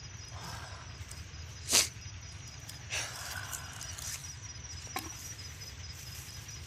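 A cast net being picked through by hand to free small fish: a few sharp clicks and taps, the loudest about two seconds in. Under them run a steady low rumble and a faint high pulsing chirp.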